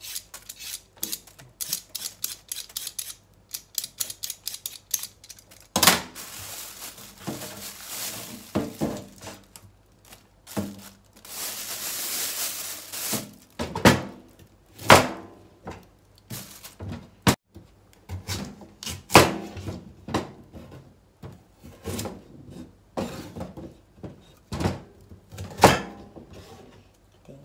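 Preparing a carrot on a wooden cutting board: a quick run of light scraping strokes and rustling at first, then, from about halfway, single sharp knocks as a kitchen knife cuts through the carrot onto the board, one every second or two.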